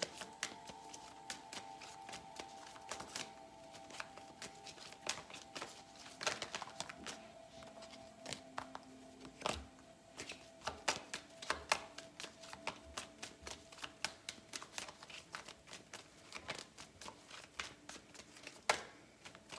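A tarot deck being shuffled by hand: an irregular run of soft card clicks and flicks. Faint background music with long held tones runs underneath.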